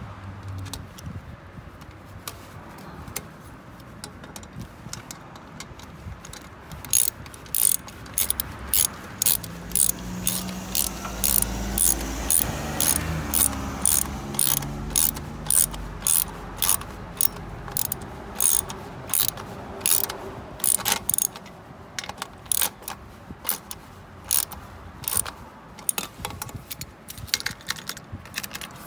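Hand ratchet clicking in short, even strokes, about one to two sharp clicks a second, as a muffler band clamp is tightened; the clicks thin out near the end. A low vehicle hum swells and fades in the middle.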